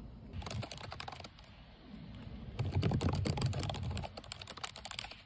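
Fast typing on a computer keyboard: a short run of keystrokes, a brief pause, then a longer run of rapid keystrokes.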